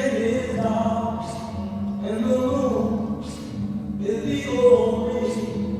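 Music with voices singing long held notes, choir-like, over a steady low accompaniment.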